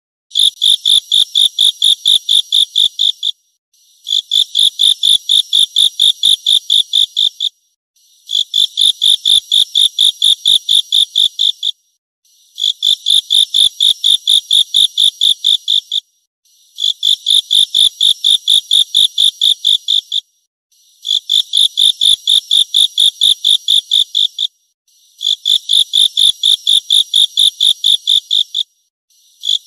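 Insect song: loud, high-pitched chirping trills of rapid pulses, each lasting about three and a half seconds, with short breaks between them. The trills repeat evenly about every four seconds, about seven times in all.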